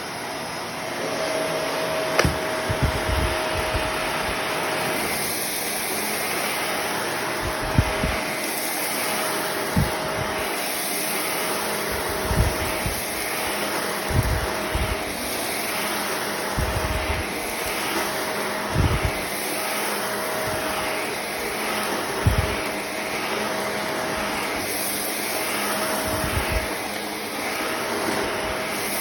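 Shark Navigator Lift-Away Professional UV54026 upright vacuum cleaner running steadily while vacuuming, its motor noise swelling and easing in a slow regular rhythm. Short low thuds come every second or two.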